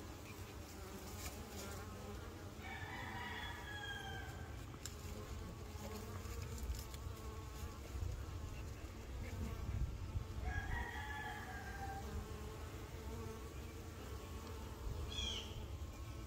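Honey bees buzzing steadily as they fly in and out of a hive entrance. A rooster crows twice, a few seconds in and again about ten seconds in.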